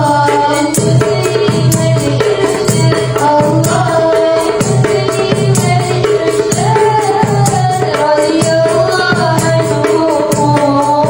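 Women's voices singing a sholawat devotional song, accompanied by a darbuka hand drum and jingling tambourines keeping a steady rhythm.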